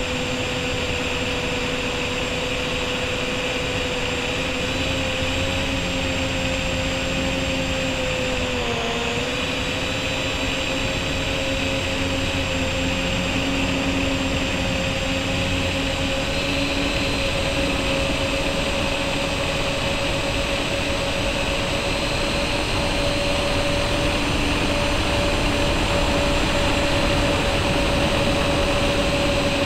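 Brushless motors and propellers of an MJX Bugs 3 quadcopter on a 2S battery in flight, heard from the camera mounted under the drone: a steady whine over a hiss of prop wash. The pitch dips briefly about nine seconds in, then holds steady and grows slightly louder near the end.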